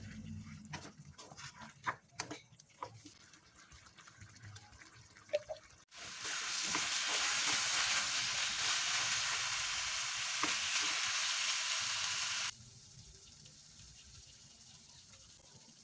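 Wooden spatula stirring goat meat in a thick sauce in a wok, with scattered scrapes and taps against the pan; about six seconds in, a loud steady sizzle of the sauce frying and reducing starts, then cuts off suddenly some six seconds later.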